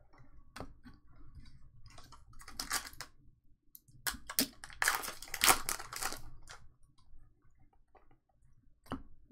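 Foil wrapper of a trading-card pack crinkling as it is torn open, with scattered short rustles and clicks from the cards being handled. The loudest crinkling comes a little after the middle.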